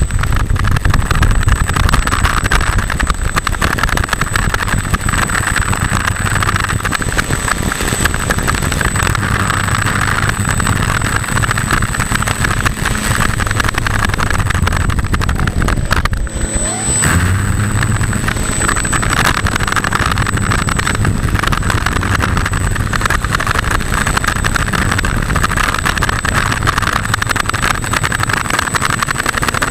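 E-flite Opterra 2 m flying wing's electric motor and pusher propeller running steadily while it taxis, heard through a camera on the airframe, with a thin high whine over it. About two-thirds of the way through, the throttle briefly drops and the motor spins back up, rising in pitch.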